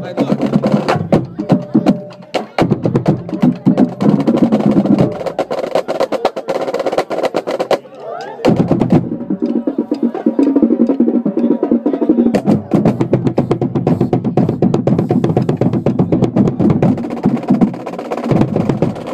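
School marching band playing, with drums beating a fast rattling rhythm over the band's sound and a short break about eight seconds in.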